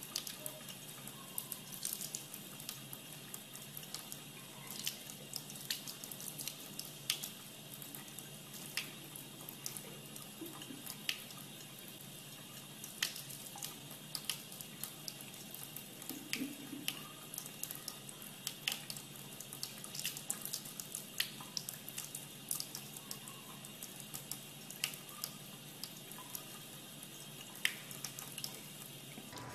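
Thin stream of tap water running steadily into a sink basin, with frequent sharp ticks scattered through it.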